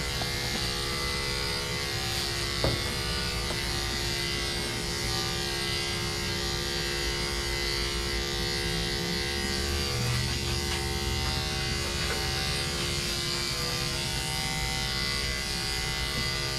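Corded electric dog-grooming clippers running steadily with a constant hum as they shave down a dog's thick coat, with a brief click a few seconds in.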